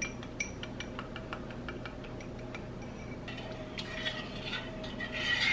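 A small wire whisk clicking quickly against a ceramic bowl as egg yolks are beaten. About three seconds in, a spoon stirs and scrapes inside a stainless steel saucepan of cooking frosting mixture.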